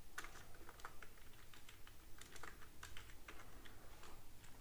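Faint typing on a computer keyboard: light keystroke clicks in short, irregular runs as text is typed and corrected.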